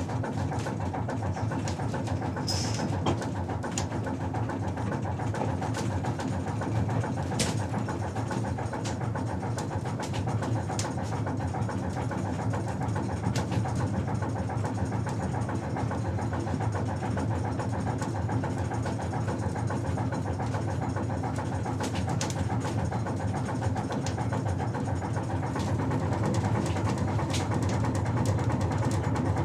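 Ship's below-deck ambience: a steady low machinery drone with a few sharp clicks and knocks scattered through it, slightly louder near the end.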